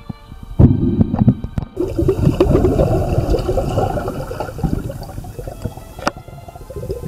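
Water sloshing and bubbling around a camera held under water, an uneven rumble with a few sharp knocks, the clearest about six seconds in.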